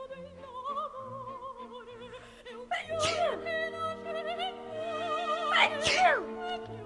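Operatic singing with vibrato over classical accompaniment, interrupted by two sudden sneezes: one about three seconds in and one near the end, each falling sharply in pitch.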